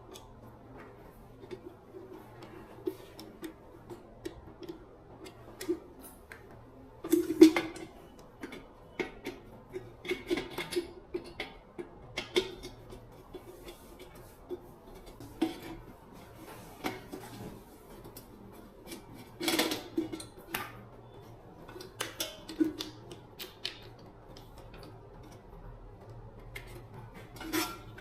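Irregular clicks, taps and short clatters of small metal parts and hand tools being handled. Louder clatters come about seven and a half seconds and twenty seconds in, over a faint steady hum.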